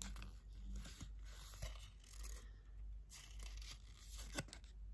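Faint rustling and scraping of a paper backing card being handled, with a few light clicks.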